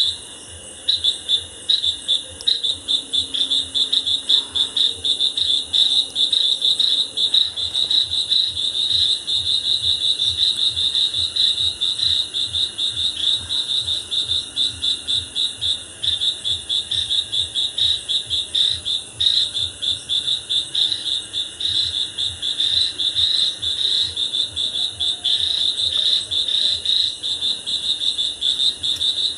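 Crickets chirping at night: a steady, high-pitched chorus of rapid pulses that goes on without a break.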